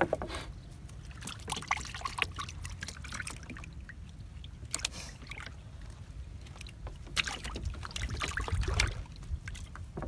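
Water trickling and dripping off a monofilament gill net as it is hauled into a plastic boat, with scattered short rustles and clicks from the net being handled. A low steady rumble runs underneath.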